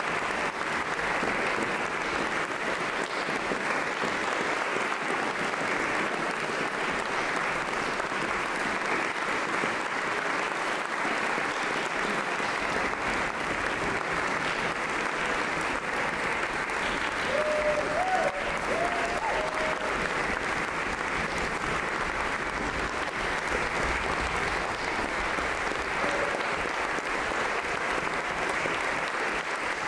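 Audience applauding steadily, many hands clapping at once. About two-thirds of the way through, a single voice briefly calls out over the clapping.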